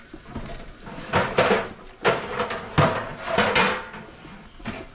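Kitchen handling noises: four or five short rustling, clattering bursts with a few light knocks, like a drawer or cupboard being rummaged through and metal utensils moved.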